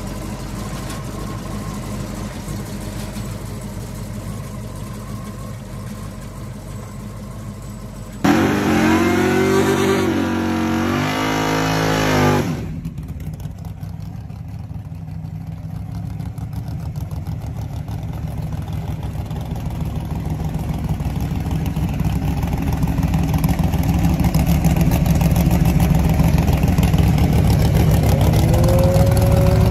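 Hot rod engines in separate clips. First, an engine runs steadily at a low speed. Then, about eight seconds in, another engine revs loudly several times, rising and falling for about four seconds. Finally, a third engine is held at high revs through a burnout and grows steadily louder.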